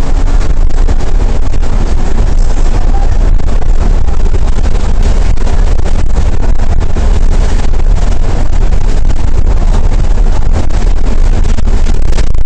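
Alexander Dennis Trident E500 double-decker bus on the move, heard from the upper deck: the Cummins ISL8.9 diesel and road noise make a loud, steady low rumble, with a constant crackle over it.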